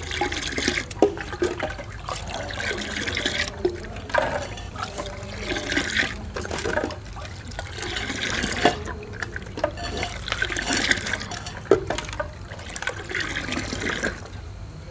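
Lukewarm milk scooped up in a metal ladle and poured back, splashing into an earthenware pot, again and again about every two seconds. This is the yogurt starter being beaten into the milk to set curd (dahi).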